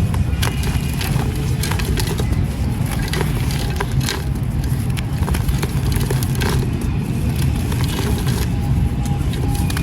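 Dry, gritty sand-cement crumbs being crushed and crumbled, giving a continuous stream of crisp crunches and crackles over a steady low rumble.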